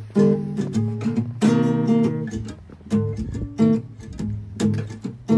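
Acoustic guitar music, with chords struck about every one and a half seconds.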